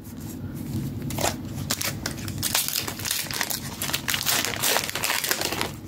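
Foil wrapper of a Pokémon TCG 151 booster pack crinkling and crackling as it is handled and opened, a dense run of small crackles throughout.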